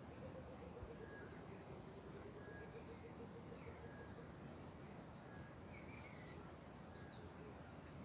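Faint birdsong over the steady rush of a river. A low, bubbling run of rapid hoots falls and then rises again through the first half, typical of a Burchell's coucal (the 'rain bird'). Meanwhile another bird repeats a short high note about once a second among scattered quick high chirps.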